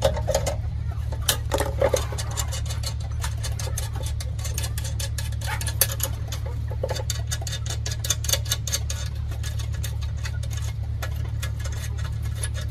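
Irregular metallic clicks and taps as hands and tools work at the end cap of a steel-cylinder oven, over a steady low hum.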